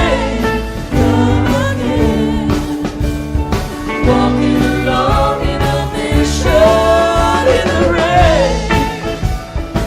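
Live band playing a mid-tempo rock song, with singing over drums and a steady bass.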